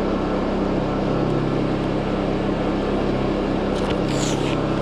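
Two small Honda portable generators running steadily with an even engine hum, warming up so their oil can be changed. A brief hiss shows near the end.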